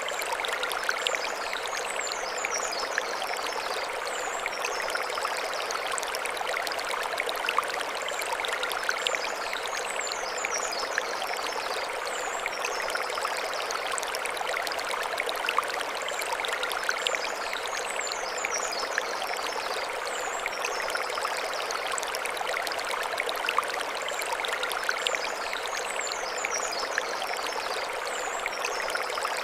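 Mountain stream running steadily over stones, a continuous rush of water with small splashes. High chirping phrases, like a bird's song, come back about every eight seconds.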